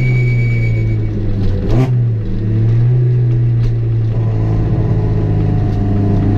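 Peugeot 206 XS competition car's engine running at steady moderate revs, heard from inside the stripped cabin. About two seconds in the note briefly drops with a sharp click, then settles back to a steady pitch, as on a gear change.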